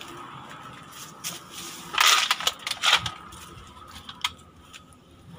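Dry leaves, twigs and brush crunching and crackling under footsteps and body contact as a person pushes through undergrowth and crouches into a rock cave mouth, with a cluster of loud crunches about two to three seconds in and a few lighter snaps after.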